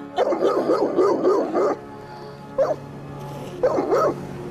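Bernese Mountain Dog barking agitatedly: a rapid run of barks and yelps lasting about a second and a half, then two short single barks later on. Steady background music plays underneath.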